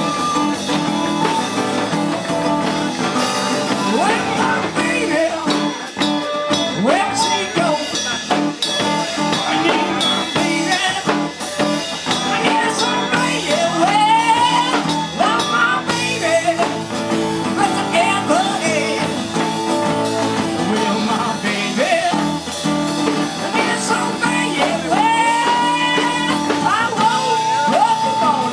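Live band playing a song on acoustic guitar, electric bass and drum kit, with a man singing lead vocals from a few seconds in.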